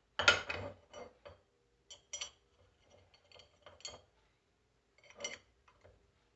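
Metal starter-motor parts and tools clinking and clattering as they are handled and set down. The loudest knock comes just after the start, in a quick cluster, followed by single clinks about once a second.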